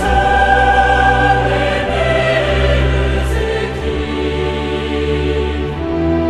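Soundtrack music: sustained choral singing over steady held low bass notes.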